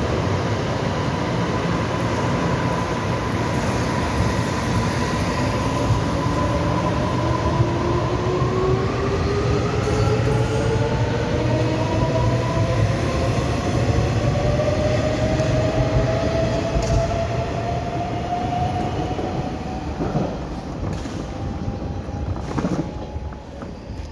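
Taiwan Railway EMU500 electric multiple unit pulling out and accelerating past: a steady rumble of wheels on rail, with the electric motors' whine climbing in pitch, several tones rising together. It dies away over the last few seconds as the train clears the platform.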